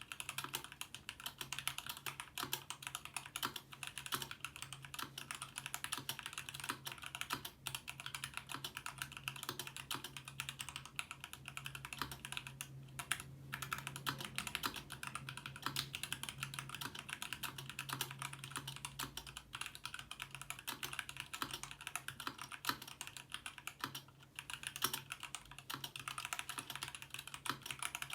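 Continuous fast typing on a Ramaworks M60-A 60% mechanical keyboard with stock, unlubed Gateron Black Ink linear switches and GMK keycaps, keys clacking in a dense stream with a couple of brief pauses.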